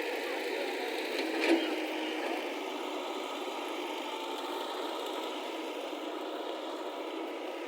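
Diesel engine of heavy digging machinery running steadily, with a single sharp metallic knock about a second and a half in.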